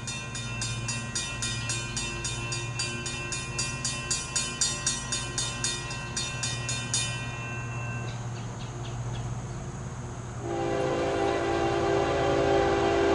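An approaching freight train's low steady rumble, with a rapid bell-like ringing of about three strikes a second that stops about seven seconds in. About ten and a half seconds in, the lead ES44AC locomotive's Nathan K5HL five-chime air horn starts sounding, a steady chord that grows louder as the train nears.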